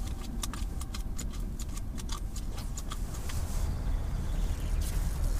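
A run of light, sharp clicks and ticks, like fishing tackle being handled while the hook is baited, over a low rumble that grows louder about three and a half seconds in.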